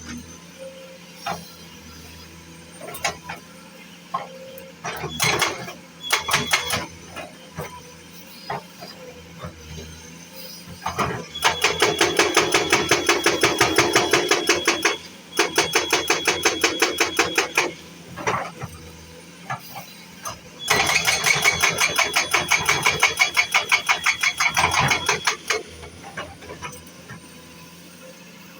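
Powered road-works machine hammering in three long bursts of rapid, evenly spaced blows, about ten a second, over a low engine hum with scattered knocks between the bursts.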